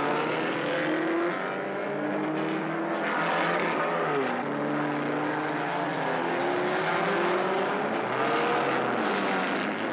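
A field of racing touring cars accelerating away together from a race start. Several engines rev at once, their pitches climbing and then dropping at gear changes.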